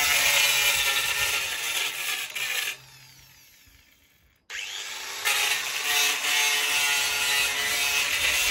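Corded handheld power tool with an abrasive disc grinding rust and paint off a steel post. It runs steadily, is switched off about three seconds in and winds down with falling pitch, then starts again about halfway through and runs on.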